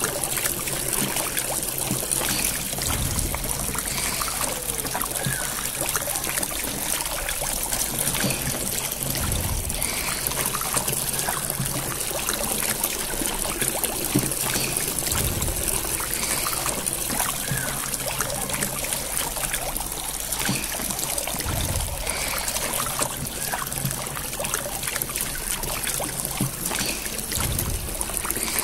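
Recorded water being poured and stirred by hand, a steady trickling and splashing wash, with a low thump about every six seconds.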